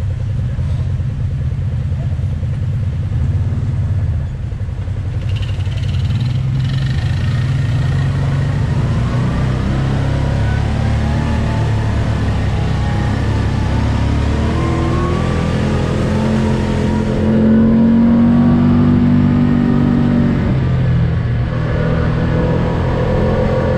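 Side-by-side off-road vehicle's engine running while driving along a dirt track, the revs rising and falling with a low steady drone. It gets louder with higher revs for a few seconds about three-quarters of the way through.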